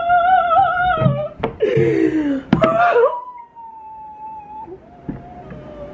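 A woman wailing and crying in distress. Long, wavering, high-pitched wails are broken by ragged sobbing breaths about a second and a half in, then give way to quieter drawn-out moans.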